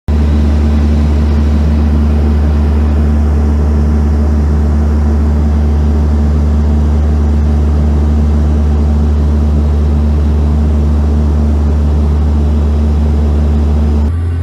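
Turboprop airliner's engines and propellers heard from inside the cabin in cruise: a loud, steady low drone with a hum above it. Near the end it cuts abruptly to the quieter rumble of a car.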